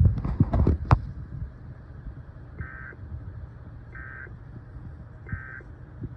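Three short, warbling EAS end-of-message data bursts, the digital 'NNNN' signal, about a second and a half apart, closing an alert broadcast. They sit over a steady low hum from the received audio, with a few low thumps in the first second.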